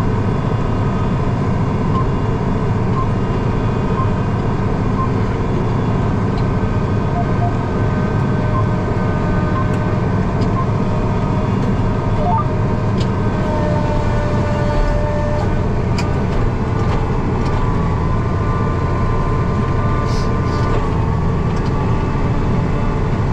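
Farm tractor engine running steadily under load, heard from inside the cab while pulling a planter, with a few faint clicks late on.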